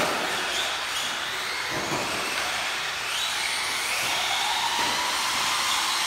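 Battery-powered remote-control race cars' electric motors whining at high pitch as the cars run around the track. The pitch rises and falls as they speed up and slow down.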